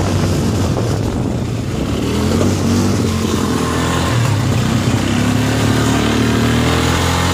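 Off-road vehicle engine running steadily while riding, its pitch rising a little about two seconds in as it speeds up.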